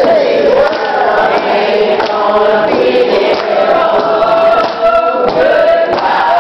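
Church congregation singing a gospel song together in long held notes, with hands clapping along.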